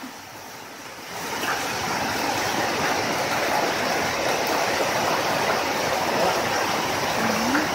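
Torrential rain pouring down, a steady rushing hiss of falling and running water that swells about a second in.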